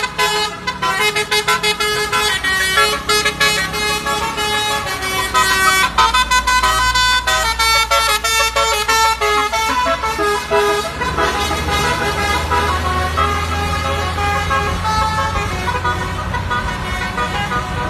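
Telolet bus horn, a multi-tone musical air horn, playing quick melodic toots of several pitches. A low engine hum comes in partway through and grows stronger.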